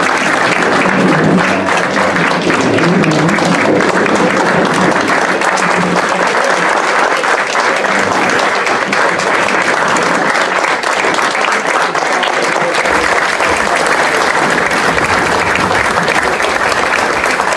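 A roomful of people clapping: steady, sustained applause.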